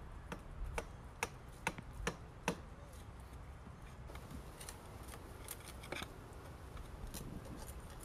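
Hammer driving a steel chisel into brick and mortar around a water pipe: six sharp metal-on-metal strikes at about two a second, then fainter ticks and scrapes as the chisel pries at the loosened brick.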